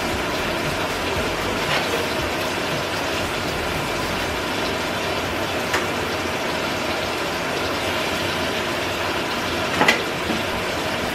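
Food sizzling steadily in two frying pans on an electric stove, with a few light clicks over it; the sharpest click comes about ten seconds in.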